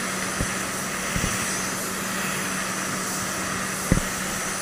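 Gravity-feed paint spray gun hissing steadily as it sprays paint onto a car bumper, over a steady low hum, with a few light knocks, the sharpest near the end.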